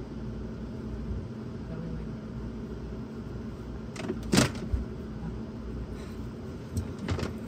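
A tangle of old electrical wiring rustling and knocking as it is pulled up out of a boat's cockpit locker, with one sharp knock about four seconds in and a few smaller clicks near the end, over a steady low rumble.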